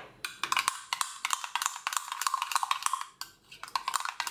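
Metal teaspoon clicking and scraping against the inside of a ceramic mug as plain yogurt is beaten, in quick irregular taps about five or six a second, with a short pause about three seconds in.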